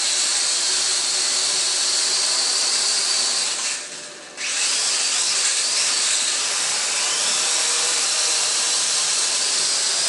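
A toy RC camera quadcopter's small electric motors and propellers run with a steady high-pitched buzzing whine. The motors cut out for about half a second near four seconds in, then spin back up.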